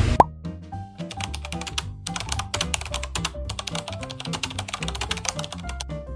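Background music with a repeating bass line, overlaid with a rapid run of typing-like clicks from an editing sound effect; a short rising blip opens it, the loudest moment.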